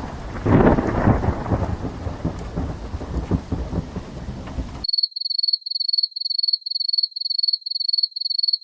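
Thunderstorm sound effect: rain with rumbling thunder, loudest about half a second in, cutting off abruptly about five seconds in. It is followed by a high electronic beep repeating about three times a second.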